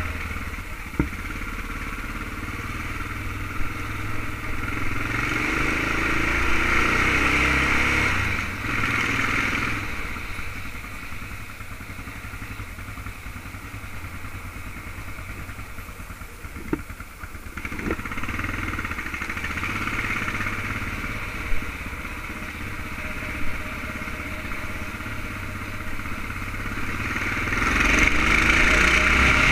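Yamaha XTZ 600 Ténéré's single-cylinder four-stroke engine running under way at low town speed, revving up about five seconds in and again near the end, easing off in the middle. A few short sharp clicks stand out over it.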